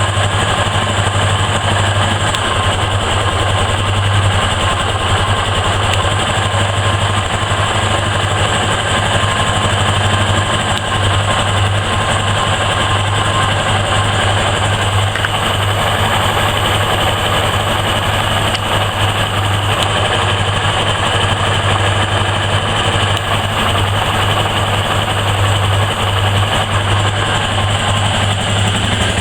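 2007 Yamaha XTZ 250 Lander's single-cylinder four-stroke engine running steadily, with the strange engine noise that the owner links to a loss of power.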